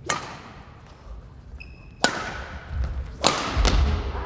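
Badminton rally: rackets strike the shuttlecock four times, each hit a sharp crack that echoes in a large gym hall, with a brief shoe squeak after the first hit and low thuds of footsteps on the court.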